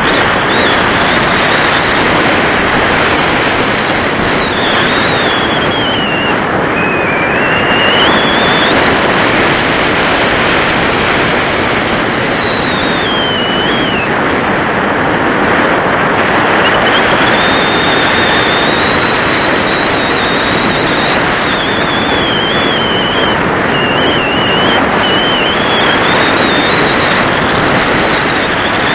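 Steady rushing of airflow over the onboard camera of a Top RC Lightning glider in soaring flight, with a high whistle that slowly rises and falls in pitch and drops away briefly about halfway through.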